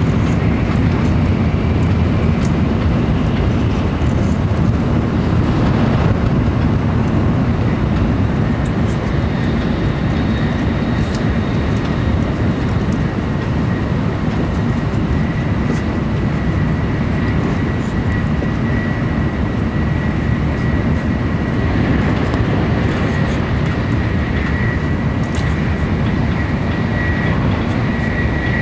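Shinkansen bullet train running at speed, heard from inside the passenger cabin: a steady, mostly low running noise, with a faint high, steady whine joining about halfway through.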